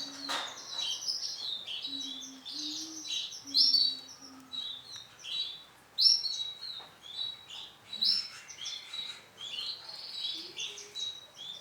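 Male domestic canary singing: a continuous song of rapid trills and repeated high phrases with brief pauses.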